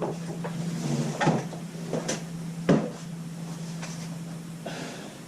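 Shelving poles and parts knocking and clattering as they are forced together, five separate knocks, with a steady low hum underneath; the poles will not snap into place.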